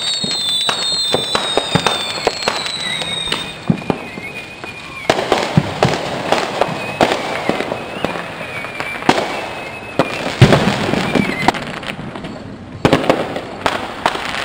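Distant fireworks and firecrackers going off in irregular, overlapping pops and bangs, with louder clusters of bangs in the middle and near the end. High repeating whistling tones sound during the first few seconds.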